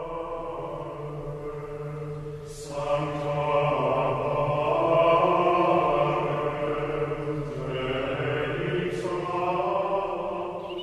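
Low male voices chanting in sustained, held notes, like monks' plainchant, swelling fuller about two and a half seconds in and shifting to a new phrase near the end.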